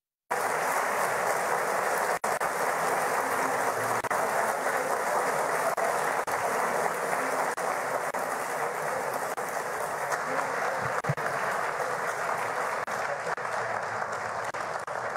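A large audience applauding steadily, a long ovation that cuts in suddenly just after the start and eases slightly near the end.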